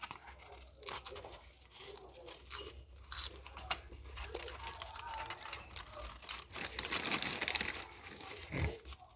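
Hand work on engine parts: irregular clicks, scrapes and rustling as parts are handled and fitted.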